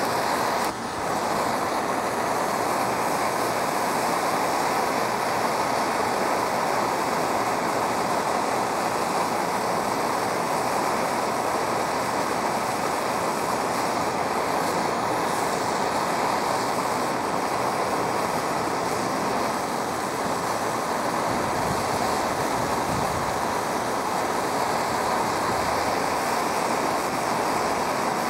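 Propane torch flame burning steadily with a constant hiss while it heats an aluminum boat hull and melts an aluminum brazing rod.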